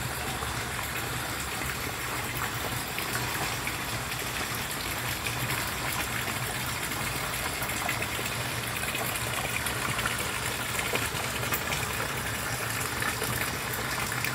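Water pouring steadily from an inlet pipe into a fish pond, a continuous splashing gush, with a low steady hum beneath it.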